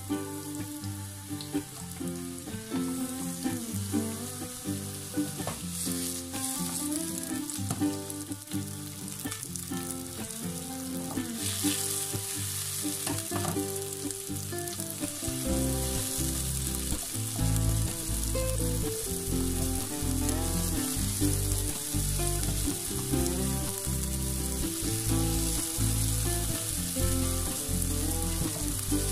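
Sliced onions sizzling in hot oil in a frying pan as they fry, stirred now and then with a spatula. Background music plays underneath, with a bass line coming in about halfway.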